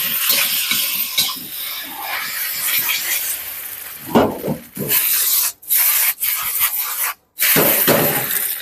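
Wide rice noodles sizzling in a hot steel wok while a metal spatula stirs and scrapes them across the pan. The sound breaks off abruptly twice for a moment, about five and a half and seven seconds in.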